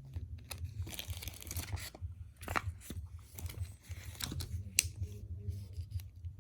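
Paper rustling and crinkling as a folded instruction leaflet is handled, with a few sharp taps scattered through it and a low hum underneath.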